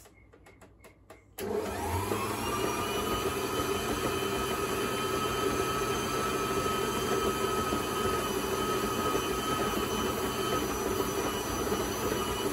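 Electric stand mixer switched on about a second and a half in, its motor spinning up and then running steadily, beating cream cheese as caster sugar is poured in.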